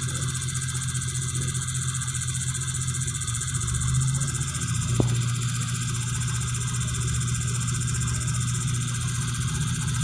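Sharp top-load automatic washing machine running its spin-dry cycle with a steady low hum. One sharp click comes about five seconds in. The newly replaced drain motor is holding the drain valve open so the tub can spin.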